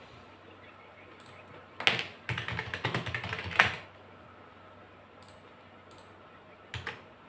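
Typing on a computer keyboard: a quick run of key clacks for about two seconds, starting about two seconds in, then a couple more keystrokes near the end.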